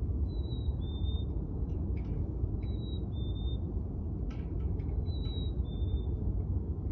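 A black-capped chickadee whistling its two-note 'fee-bee' song, a higher note followed by a slightly lower one. It sings three times, about every two and a half seconds, over a steady low rumble.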